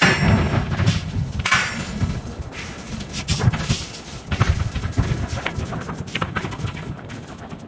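Heavy forging hammer striking a red-hot iron slab, two heavy blows in the first second and a half. After that come scattered metal clanks and knocks as the hot slab is tipped over, over a low rumble.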